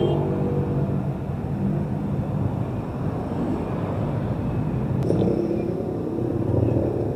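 City street traffic: car and motorcycle engines running and passing over a steady road rumble. A nearer engine grows louder about five seconds in.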